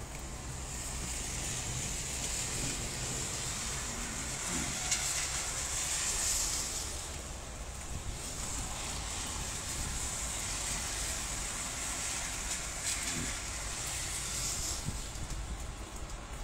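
Heavy rain pouring steadily, growing louder twice for a second or two.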